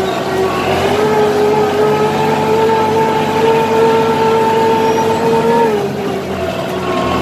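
Tractor engine running steadily, heard close up from the driver's seat as it pulls a harrow through the field. Its note dips about two-thirds of the way in, then picks back up near the end.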